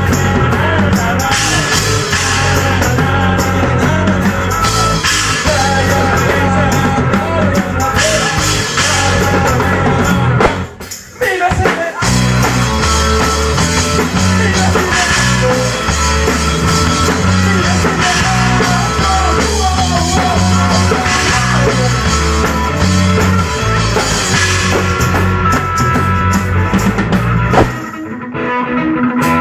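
Live rock band playing: singing over drum kit, electric bass and electric guitar. The band breaks off briefly about ten seconds in, and drops out again near the end of the passage.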